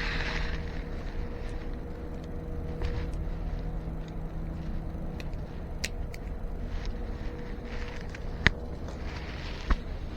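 Light clicks and taps of small metal parts being handled during an e-bike brake pad swap, over a steady low rumble with a faint hum; two sharper clicks near the end.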